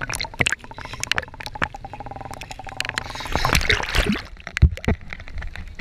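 Water sloshing and gurgling around a waterproof action camera bobbing at the lake surface in rain, with many sharp ticks and a rush of water as it is washed under about three and a half seconds in. A steady engine tone, typical of a distant jet ski, is heard for a second or two before that.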